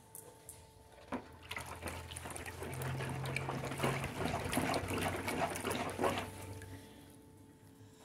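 A bucket of tallow, frying oil and ethanol sloshing and swirling as it is stirred with a long plastic stick, with many light ticks. The stirring starts about a second in, is loudest in the middle and dies away near the end.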